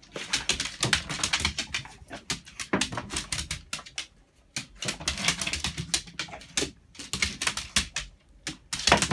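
A dog's claws clicking and tapping on a hard vinyl floor in quick, irregular runs as it moves about hunting for treats, with sniffing along the floor.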